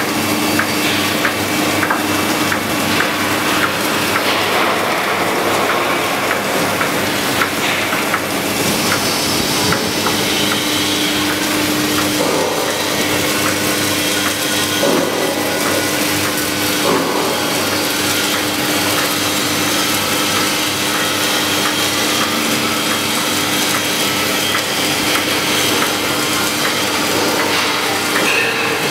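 Horizontal H-beam welding line running: a steady, dense crackling noise over a constant hum.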